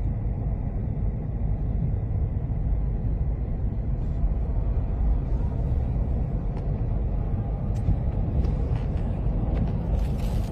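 Strong lakeshore wind buffeting the microphone, a steady, gusting low rumble, with a few brief crackles later on and a short rushing burst near the end.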